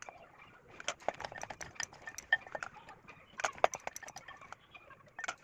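Steel spoon stirring cashews through a damp gram-flour and spice coating in a glass bowl: a quick, irregular run of clicks and taps of the spoon against the glass, thickest about a second in and again past the middle.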